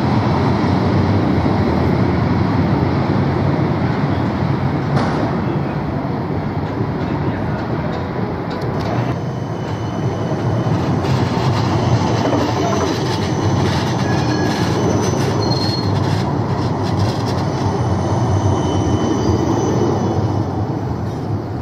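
Siemens Combino Plus light-rail tram running past close by, a steady rumble of steel wheels on rails. In the second half there are brief high wheel squeals and scattered clicks as the wheels run over the track.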